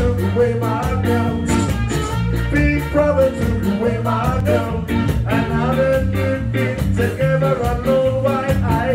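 Live band playing on stage: electric guitar and drum kit with a steady beat.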